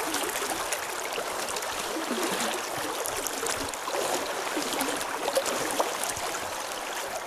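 River current rushing and gurgling over a shallow, stony riffle: a steady wash of water with small splashes.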